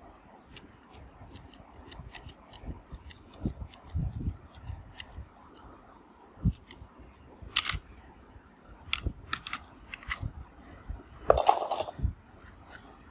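Handling noises: scattered sharp clicks and knocks, with a brief scrape about seven and a half seconds in and a louder rustling scrape near the end.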